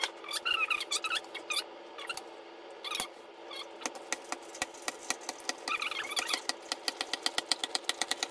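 Hand-cranked plastic CucinaPro tomato strainer being turned while it presses cooked tomatoes. The crank mechanism squeaks in short runs of high chirps, with a brief pause around two seconds in, then a rapid clicking in the second half.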